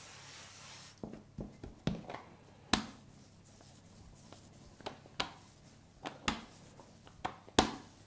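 Rolling pin rolling out chilled shortcrust dough on a floured wooden worktop. It starts with a soft brushing as flour is spread by hand, then comes a run of about nine sharp, irregular knocks and clacks as the pin is pressed and rolled over the firm dough.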